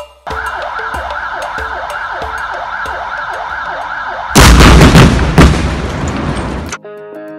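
A warning siren wails with a fast repeating rise and fall, signalling an imminent blast. About four seconds in, a rock blast at the tunnel mouth goes off with a very loud bang and rumble, with a second bang about a second later.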